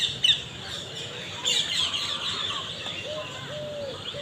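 Small birds chirping and twittering, with a busy run of quick chirps about one and a half seconds in. A series of short, lower arched notes comes near the end.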